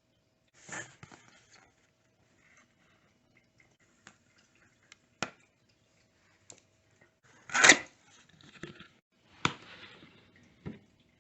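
Hands handling the Echo Show 8's cardboard box and packaging: scattered clicks, taps and short rustles, with the loudest rustle about two-thirds of the way through.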